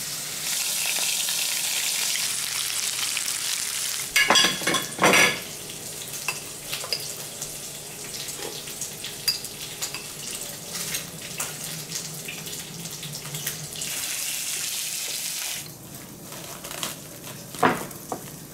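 Pork belly sizzling as it fries in a pan, with a few short louder noises about four to five seconds in and scattered small clinks. The sizzle drops away sharply about three-quarters of the way through.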